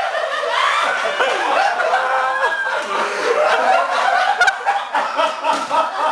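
Several people laughing hard together, overlapping snickers and chuckles, with a brief sharp click a little past the middle.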